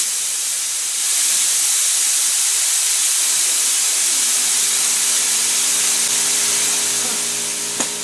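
Compressed air hissing steadily out of a homemade train horn's air tank, a converted propane tank charged to about 80 PSI. The hiss begins to fade near the end, with a short click.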